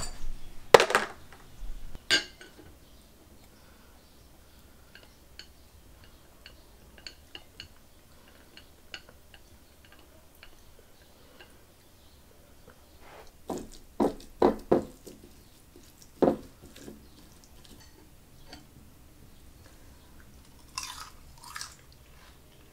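Eating utensils clinking and knocking against a bowl in scattered bursts of sharp clicks, loudest near the start and again in a cluster about two-thirds of the way through, with faint small ticks of chewing in between.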